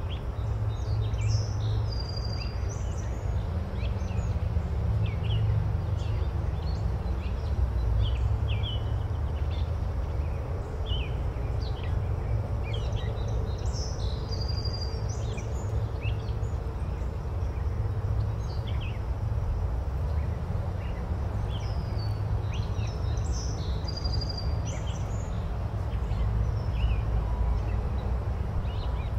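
Wind buffeting the microphone with a steady low rumble, with small birds chirping in short bursts several times in the background.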